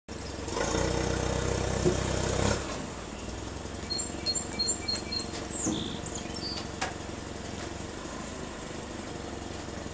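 Propane-powered Yale forklift engine running, louder for about the first two and a half seconds and then settling to a steady idle. A bird chirps a quick run of short notes about four to five seconds in.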